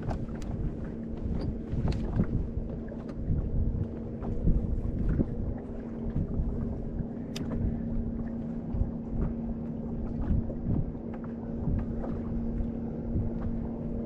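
Wind buffeting the microphone on an open boat deck, over a steady low hum from the bow-mounted Lowrance Ghost electric trolling motor, with scattered small clicks and knocks.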